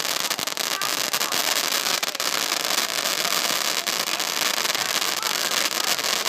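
Fireworks going off: a steady hissing crackle dense with rapid sharp pops.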